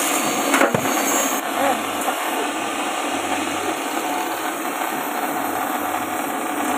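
JG 25 multi-purpose chopping machine running steadily as pieces of cassava are fed into its hopper, with a sharp crack under a second in as a piece hits the blades.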